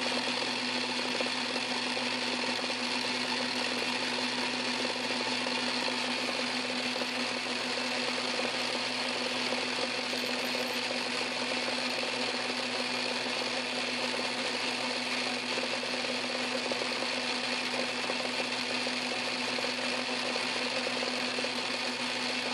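Metal lathe running steadily with a steady hum, turning a drill bit that is being fed slowly into a small steel part; the bit is making very little progress, which the machinist puts down to harder material or a dull bit.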